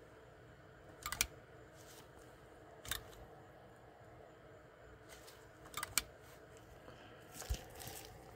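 A few short, sharp mechanical clicks from the slide lever and micro switches of a restored 1967–68 Cadillac in-dash climate controller being switched: a double click about a second in, then single clicks near three, six and seven and a half seconds, over a faint steady hum.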